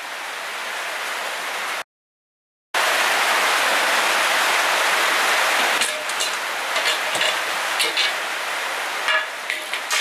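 A steady hiss, cut off abruptly about two seconds in and back a moment later, then sharp clicks and knocks from about six seconds on as steel drawer slides and aluminium angle are handled and fitted together on a workbench.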